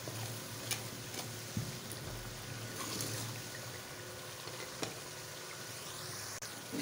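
Tomato and red-chilli masala sizzling in ghee in a metal pot, a splash of water just added so the chilli powder fries through. A ladle stirring it knocks against the pot a few times.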